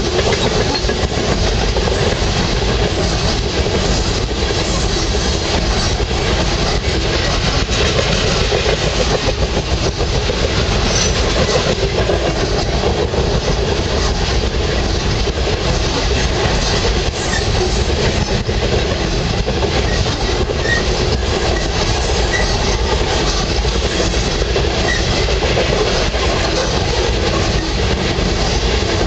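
Coal hopper cars of a freight train rolling past: a loud, steady rumble and clatter of steel wheels on the rail, with a few brief faint squeaks in the second half.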